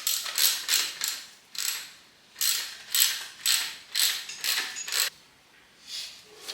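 Ratchet wrench clicking in a run of short back-and-forth strokes, about two a second, tightening the stem and top-cap bolts that secure a mountain bike's headset. The strokes pause briefly near two seconds and stop about five seconds in, with one fainter stroke after.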